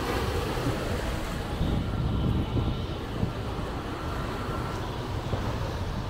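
Steady outdoor rumble of wind buffeting the microphone, mixed with small waves washing onto the sand.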